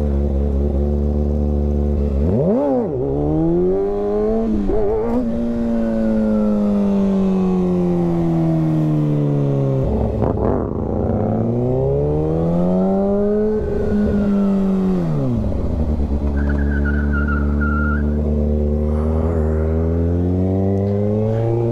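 Kawasaki Ninja ZX-6R inline-four sport bike engine heard from the saddle, revved sharply about two and a half seconds in, then winding down in a long falling note. It climbs again about ten seconds in, falls back, and settles to steady low running for the last few seconds, with a brief faint high squeal near the end.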